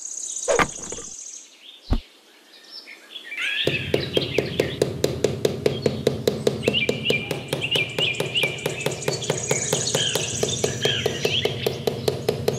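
Birds chirping over a fast, even ticking of about six ticks a second that starts a few seconds in. Two separate knocks come in the first two seconds.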